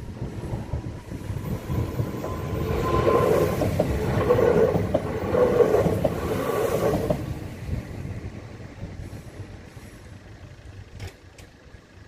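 Newag Impuls regional train passing over a level crossing. It grows louder from about two seconds in, is loudest as it crosses, then fades away. Two short sharp clicks come near the end.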